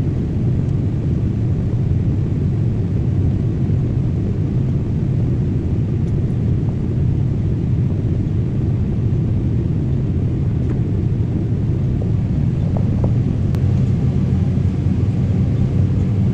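John Deere S770 combine running steadily under harvest load, a constant low rumble.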